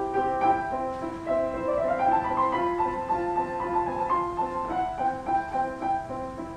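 Instrumental keyboard music with a piano sound: a melody moving over held chords, with no singing.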